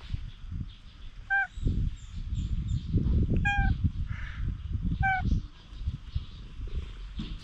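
Three short, high animal calls about two seconds apart, each bending slightly down at the end, over low rustling and rumbling.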